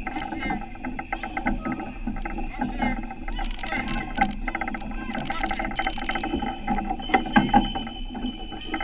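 Horse-drawn carriage rolling along, with continuous rattling and clicking from the carriage and the horse's hooves, and voices in the background.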